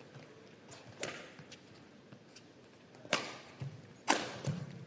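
Badminton rackets striking a shuttlecock: two sharp cracks about a second apart, the second the louder, with low thuds of players' feet on the court between them and a fainter tap about a second in.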